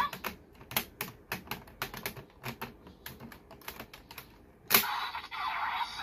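Hard plastic clicks and clacks of raise buckles being handled and fitted into a Kamen Rider Geats toy transformation belt, irregular at about three or four a second. About three-quarters of the way through, the belt's electronic sound effect starts suddenly and loudly from its small speaker, as its light panel comes on.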